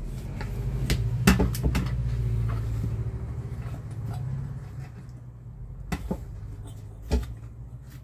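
Stainless steel blender jar and its cutter assembly being handled and fitted together: sharp metal knocks and clinks, over a low rumble that swells in the first couple of seconds and fades out about halfway through.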